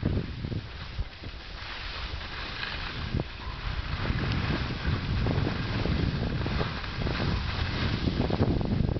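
Wind buffeting the camera microphone, a gusty low rumble that grows louder over the last few seconds.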